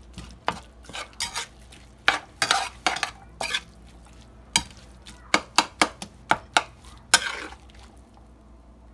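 Metal spoon stirring ground beef, onions and bell peppers in a metal skillet: irregular scrapes and clinks against the pan, thinning out near the end, over a faint sizzle of the mixture frying.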